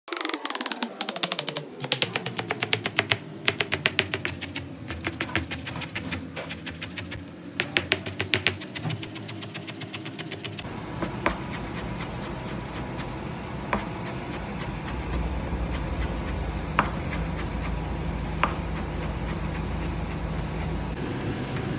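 Kitchen cooking sounds: rapid tapping and rattling for about the first ten seconds, then a steady hiss over a low rumble with a few sharp clicks.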